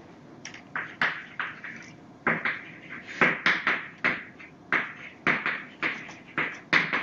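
Chalk writing on a blackboard: a quick run of short taps and scratches, about three a second, with a brief lull a little after the first second.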